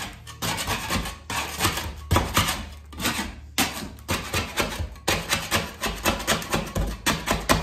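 Metal putty knife scraping dried cabinet adhesive off a wall, in runs of quick strokes broken by short pauses, settling into about three strokes a second near the end.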